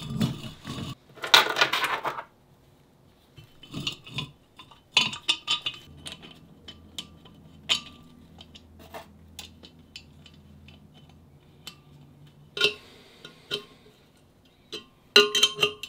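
Metal clinking and clanking as a cast-iron brake rotor is fitted onto a steel pipe mount and bolts, washers and nuts are put in by hand. Louder clanks come about a second in and near the end, with light clinks of small hardware between them.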